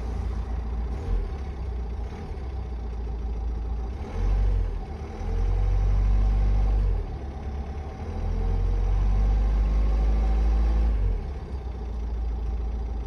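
Renault R9M 1.6 dCi diesel engine idling and blipped up three times, the revs rising and falling back, while it is checked for an unexplained knock.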